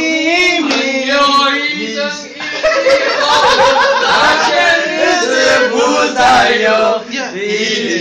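Lively group of men's voices round a dinner table: loud, overlapping talk and laughter, with some of them singing or chanting together.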